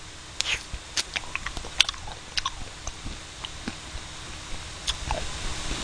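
Close-miked mouth sounds of someone eating ice cream off a spoon: irregular wet clicks and lip smacks, a few a second, at a low level.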